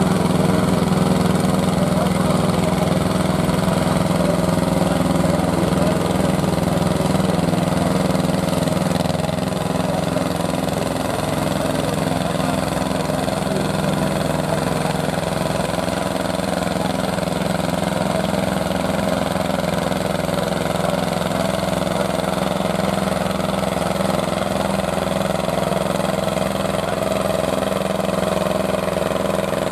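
Small vintage diesel tractor engine running steadily, a little quieter after about ten seconds.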